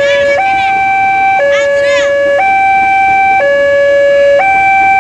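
Two-tone hi-lo siren, switching between a low and a high note about once a second, steady and even. Quick chirping sweeps sound over it twice in the first two seconds.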